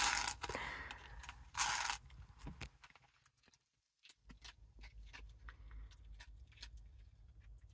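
Two short rustling sweeps in the first two seconds, then scattered faint clicks and taps, from small objects being handled on a table. About halfway through, the sound drops out for about a second.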